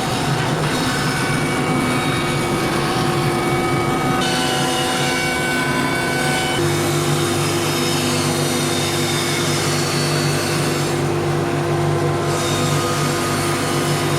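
Bandsaw with a thick carbide-toothed blade running steadily, with a constant hum and whine. Its pitch shifts about four seconds in and again about seven seconds in.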